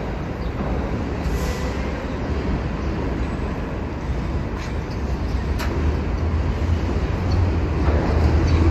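R46 subway train pulling out of the station, a steady low rumble that grows louder from about halfway through as the train gathers speed, with a few faint clicks.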